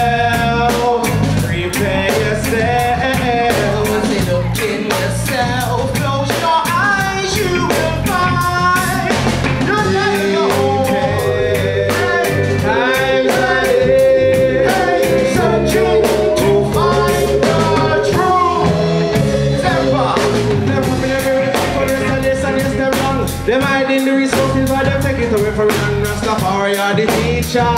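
Live reggae band playing: drum kit beat, bass and electric guitar, with a vocalist singing over it.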